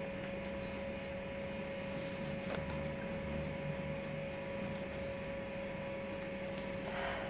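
Steady electrical hum with a constant mid-pitched tone over a low hiss, with a couple of faint clicks.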